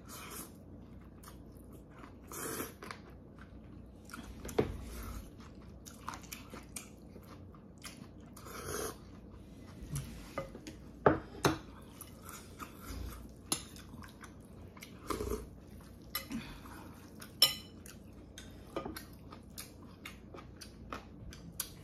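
A person eating Korean thin noodles in anchovy broth and kimchi: chewing and slurping in short bursts, with sharp clicks of chopsticks and a ceramic soup spoon against the dishes.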